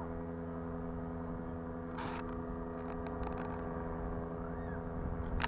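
A steady motor hum made of several held tones, with a short hiss about two seconds in and a click near the end.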